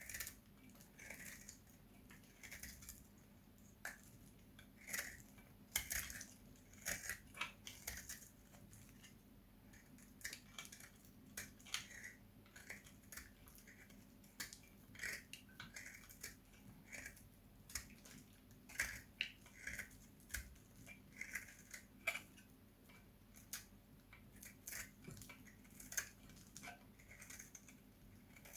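A blade cutting through hard dried soap, making short crisp crunching cuts at an uneven pace, one to three a second.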